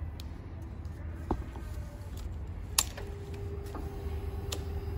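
The ignition key of a Kawasaki Ninja ZX-25R being handled and switched on: a small click, then a sharper click about three seconds in. A steady faint hum starts right after it as the electrics power up, over a low background rumble.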